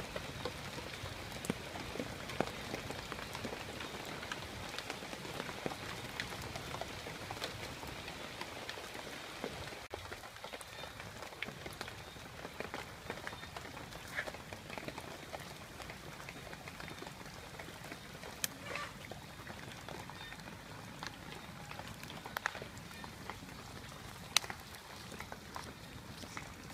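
Water drops falling on leaves and water, making a steady patter with scattered sharper ticks.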